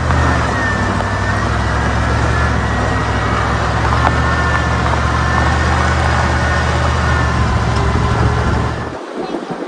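Vehicle driving on a dirt road: a steady low engine hum and road noise, with a few light clicks and rattles, cutting off abruptly about nine seconds in.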